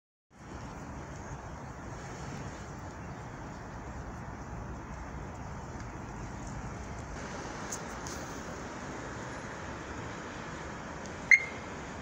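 Steady outdoor background noise, a low rumble and hiss like distant traffic, starting suddenly just after the beginning and getting a little brighter about seven seconds in. Near the end a single sharp loud click with a brief ringing tone.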